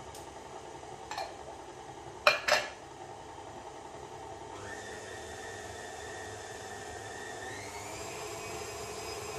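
A few sharp knocks, two close together, then a stand mixer's motor switches on about halfway through with a steady whine. Near the end the whine rises in pitch as the mixer is turned up to a higher speed to mix the sablé breton dough.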